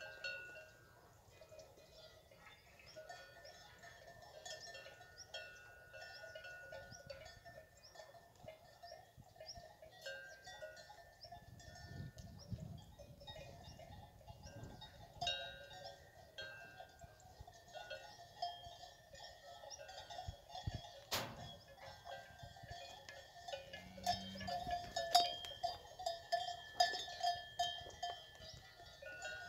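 Cencerros, the metal bells on the collars of fighting-breed cows, clanking and ringing irregularly as the cattle move about.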